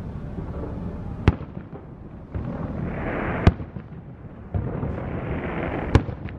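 Aerial fireworks shells bursting: three sharp bangs about two seconds apart over a steady rumbling background.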